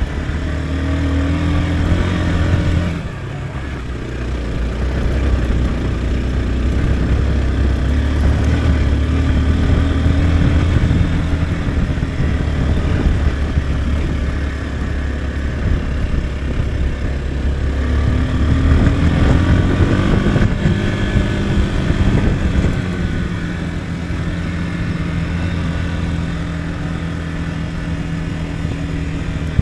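Motorcycle engine running under way, its pitch rising with the throttle and dropping back as it shifts or eases off, with a brief drop in level about three seconds in.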